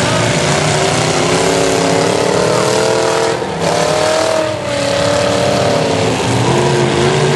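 Several demolition derby cars' engines running loud and revving, their pitches rising and falling against one another, with two short lulls about midway.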